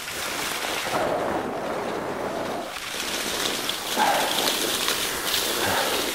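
Skis sliding with a steady hiss over a packed, grooved snow track as a dog tows the skier along, with wind on the microphone.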